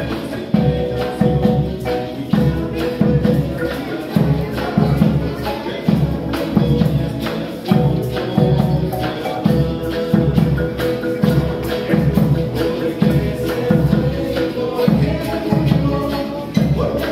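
Small acoustic folk band playing: a marimba melody and acoustic guitar over a steady low beat about twice a second, with voices singing near the end.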